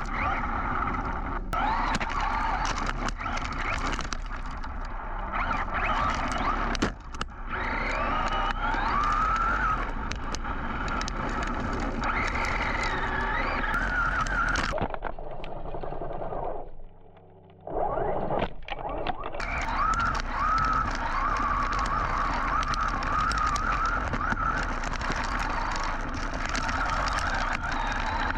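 Brushless electric motor whine of a Team Associated Rival MT10 RC monster truck driven hard over dirt, heard from a camera mounted on the truck: the whine rises and falls with the throttle over a rush of tyre, dirt and wind noise, with scattered knocks and clatter. About halfway through it drops away and goes briefly almost quiet, then picks up again.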